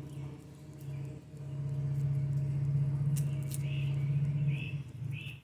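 Motorcycle engine running steadily as a low drone, swelling louder through the middle and cutting off at the very end. A few bird chirps come over it in the second half.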